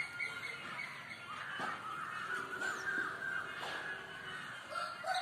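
A flock of parrots calling, many harsh, overlapping squawks and chatter.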